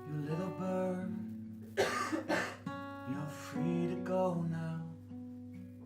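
Acoustic guitar strummed and picked, playing the instrumental bridge of a song between sung lines.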